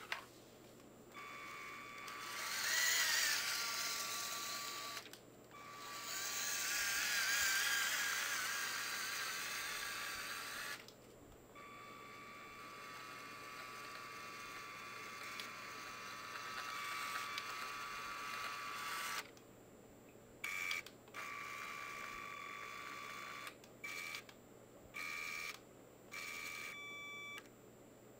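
Small electric motors and plastic gearing of a motorized LEGO truck whining, with two louder, noisier stretches early on. In the last third the whine stops and starts several times in short spells, as the motors are switched on and off.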